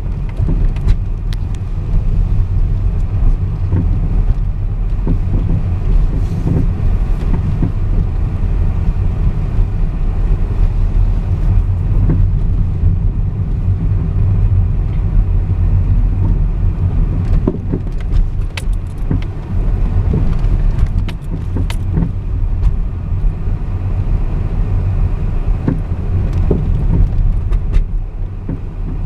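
Car driving slowly along a dirt track, heard from inside the cabin: a steady low rumble of engine and tyres, with frequent small rattles and clicks as it goes over the uneven surface.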